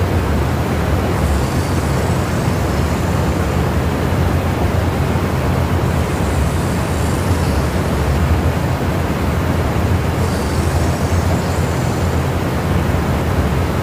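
A steady low engine drone, with a faint high hiss that rises and fades every few seconds.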